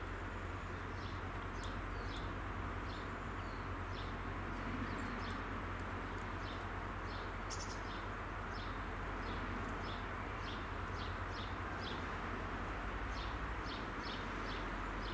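Small birds chirping over and over, short high chirps, above a steady low rumble from a diesel passenger train pulling away into the distance.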